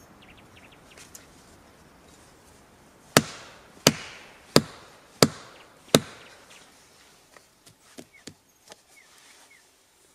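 An axe chopping into wood: five heavy blows, evenly about two-thirds of a second apart, followed by a few light knocks.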